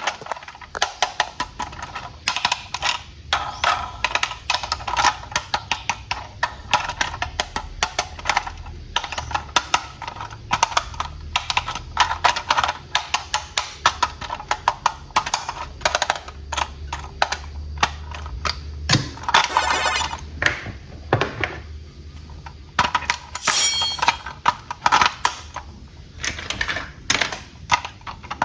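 Toys being handled: a steady run of small clicks, knocks and rattles from hard toy pieces.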